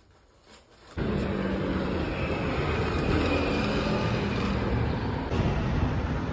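City street traffic: cars driving along the road, a steady loud rumble and hiss that begins abruptly about a second in, after a near-quiet start.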